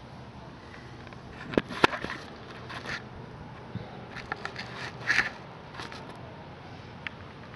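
Handling noise: an irregular scatter of short clicks, scrapes and rustles over a steady hiss as the camera is lowered to floor level, loudest just before two seconds in and again about five seconds in.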